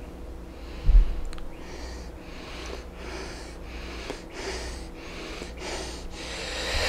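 A man's short, quick breaths, about two a second and growing louder toward the end: the catching breaths before a sneeze. A low thump about a second in.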